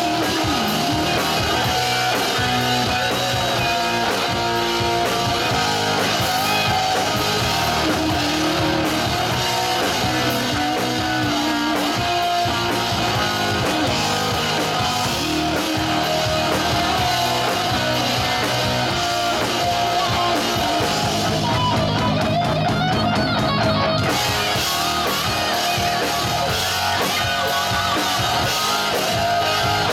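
Live rock band playing loudly and steadily: two electric guitars, bass guitar and a drum kit. The cymbals drop out for a couple of seconds about two-thirds of the way through.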